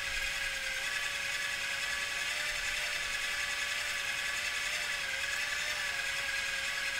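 Coal forge running on forced air: a steady whir from the air blower with a slight waver in pitch, over the even hiss of the fire.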